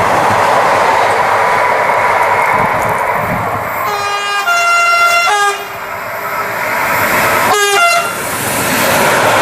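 Freight train running along the rails with a steady rushing rail noise. A train horn sounds a blast of about a second and a half some four seconds in, then a short second blast near the end.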